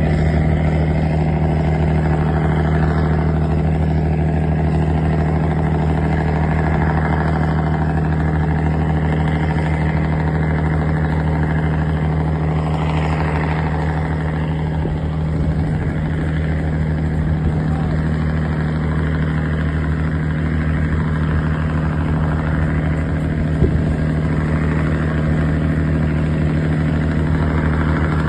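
Riverboat engine running steadily, a low, even hum with a constant stack of tones that holds unchanged throughout.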